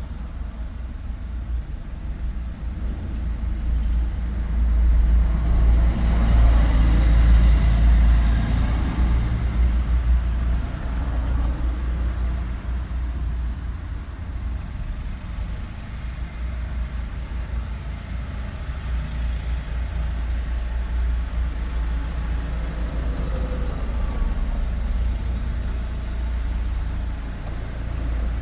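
Street traffic: a steady low rumble of road vehicles, with one vehicle passing close and loud about a quarter of the way through before the traffic settles back.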